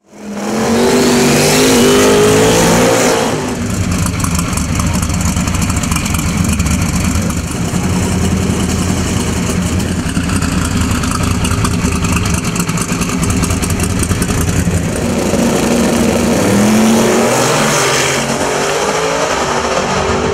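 Twin-turbocharged Camaro drag car's engine running loud in the staging lanes, revving up with a rising pitch in the first few seconds and again shortly before it launches hard down the strip near the end.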